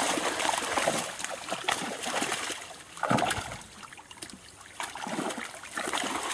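Pond water splashing and sloshing around a seine net being hauled in by hand, with a louder splash about three seconds in.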